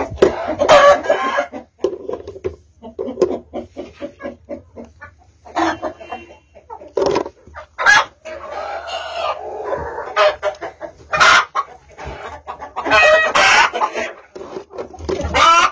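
Chickens clucking in quick runs of short calls, broken by several longer, louder calls.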